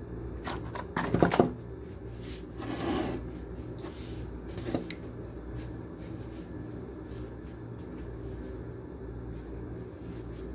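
Steady low hum of a window air conditioner, with a cluster of knocks about a second in, a brief rustle near three seconds, and a single click near five seconds.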